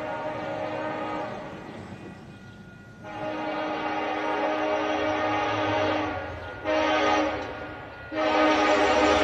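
Multi-note locomotive air horn, pitched down, sounding the end of one blast, then a long, a short and a long blast: the pattern of the grade-crossing signal. The last blast starts about eight seconds in and is the loudest.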